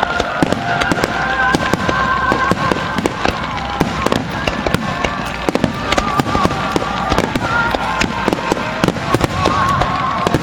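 Ground fireworks and a rapid-fire barrage going off: a dense, irregular run of sharp bangs and crackles, with high wavering tones running over them.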